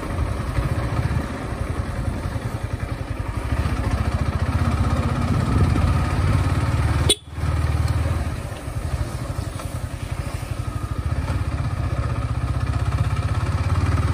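Motorcycle engine running steadily as the bike is ridden. About halfway there is a sharp click and the sound drops out for a moment before the engine picks up again.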